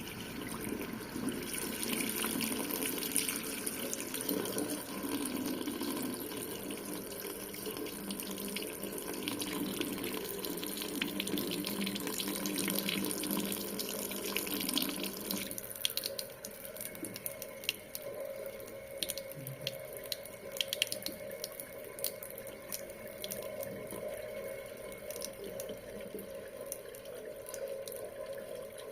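Kitchen faucet running into a sink, a steady splashing stream. About halfway through the flow is turned down, and the sound becomes quieter and thinner, with separate drip-like splashes.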